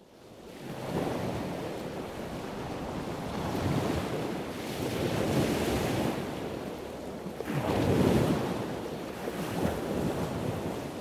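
Ocean surf: waves washing in and drawing back in slow swells, fading in from silence at the start.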